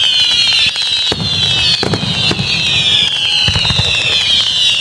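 Fireworks going off: several high whistles overlap, each sliding slowly down in pitch, with sharp bangs about a second, two seconds and three and a half seconds in.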